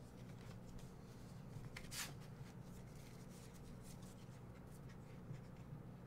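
Faint handling of Pokémon trading cards: soft sliding and flicking of card stock, with one sharper flick about two seconds in, over a low steady hum.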